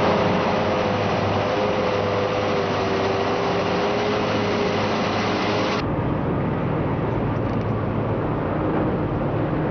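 Large off-road mining haul truck's diesel engine running, with a steady whine over the rumble. A little over halfway it cuts abruptly to a deeper, steady heavy-machinery rumble.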